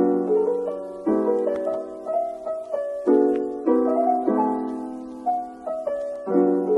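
Background piano music: a gentle melody over chords struck every second or two, each fading away before the next.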